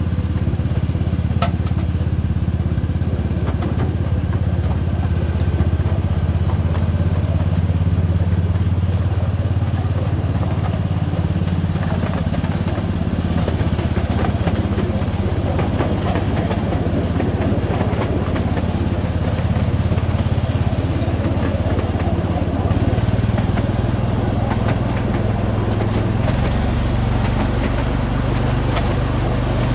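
Miniature railway locomotive's engine running steadily as the train rides along, with occasional clicks from the wheels on the track. The engine note shifts about three-quarters of the way through.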